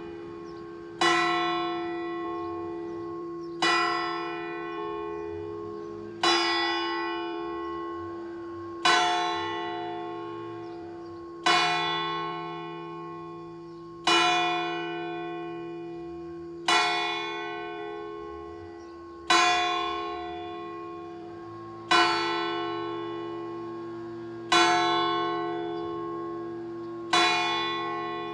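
The largest church bell, cast by Lera and tuned to a slightly sharp F, rung swinging (a distesa) for the midday call. Its clapper strikes eleven times at an even pace of about one blow every two and a half seconds, each a sudden clang that leaves a long ringing hum fading into the next.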